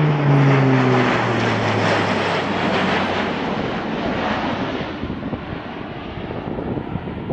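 Airbus A400M Atlas's four turboprop engines and propellers droning as it passes overhead. The low propeller tone drops in pitch about a second in, and the sound then fades steadily as the aircraft flies away.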